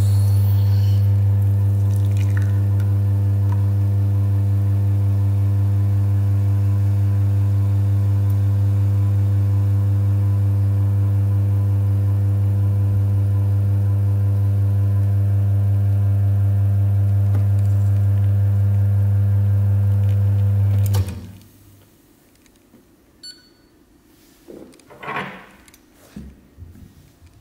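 La Marzocco Linea Mini espresso machine's pump running through an espresso extraction: a loud, steady, low hum that cuts off sharply about 21 seconds in, ending the shot. A few light clicks and clinks follow near the end.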